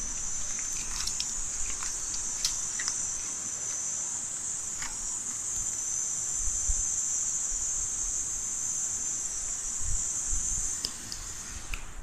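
Steady high-pitched drone of insects, with a few short clicks in the first few seconds. The drone fades out near the end.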